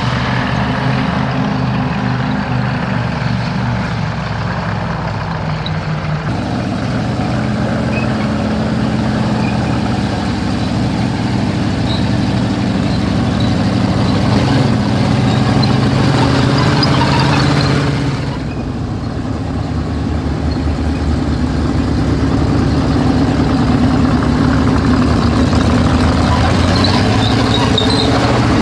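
M5 Stuart light tank, fitted with new Chevrolet engines, driving by with its engines running steadily and its tracks clattering. The sound changes abruptly about six seconds in and again about eighteen seconds in.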